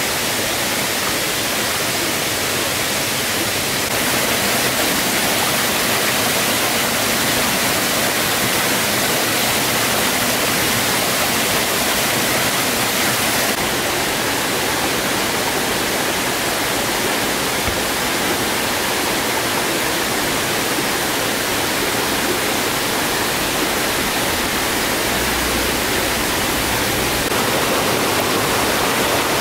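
A shallow rocky stream rushing and splashing over stones in small cascades: a steady, fairly loud hiss of flowing water.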